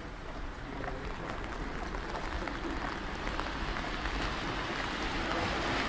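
Rain pattering and hissing on wet pavement, with the swish of car tyres on the wet road growing louder toward the end.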